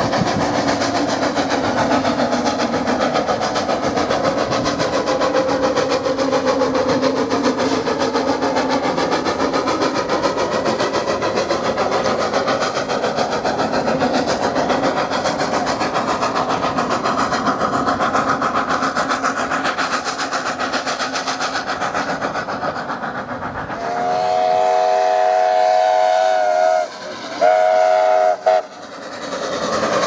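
Kerr Stuart steam locomotive running with its train of carriages: a steady, noisy rush of engine and wheel sound. About 24 seconds in its steam whistle sounds a chord of several notes for about three seconds, then a short second blast.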